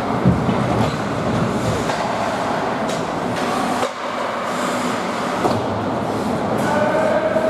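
Ice hockey play on a rink: a steady scraping rumble of skate blades on the ice, with a few sharp clacks of sticks or puck. A held pitched tone comes in near the end.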